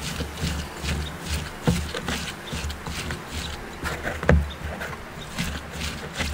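Gloved hands squeezing and kneading sliced red onion with salt in a bowl: irregular crunching and rubbing of the onion, repeating every few tenths of a second, with the loudest squeeze a little past four seconds in.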